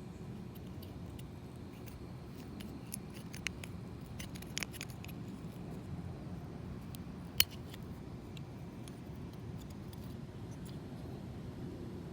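Small metal tool clicking and scraping against a Toyota A/C hose clip as the clip is picked loose without the removal tool, with scattered light clicks and one sharp click about seven seconds in, the loudest.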